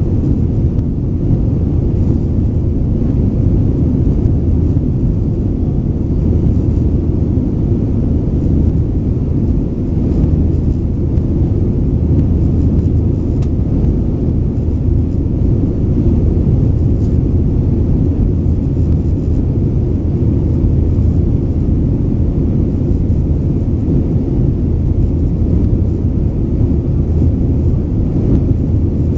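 Steady low rumble heard inside the cabin of a Boeing 737-900ER in flight, from its CFM56-7B jet engines and the airflow past the fuselage.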